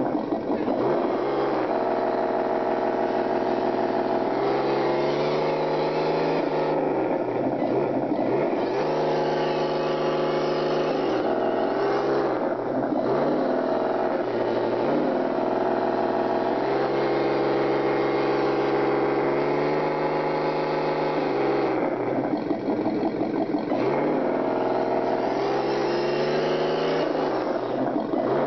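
RC scale Toyota FJ45 truck's motor and gear drive whining steadily as it crawls through mud, the pitch dropping and picking back up several times as the throttle changes.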